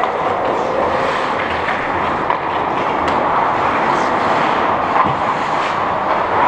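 Steady rushing ambience of an indoor ice rink during a hockey game, with a few faint clicks.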